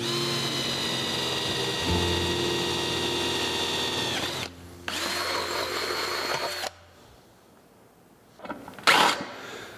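Electric drill running in two spells: a steady whine of about four seconds that drops in pitch as it winds down, then a shorter run of about two seconds. A few sharp knocks come near the end.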